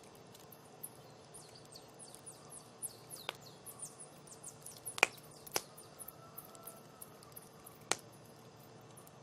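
Wood campfire crackling: a run of small ticks and snaps, with a few sharp louder pops, the loudest about five seconds in.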